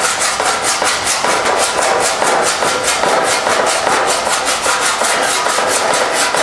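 Slapper spoon striking TIG-welded sheet steel over a dolly in rapid, steady blows, several a second, with a light metallic ring, planishing the weld seam to raise its low spots and knock down the high ones.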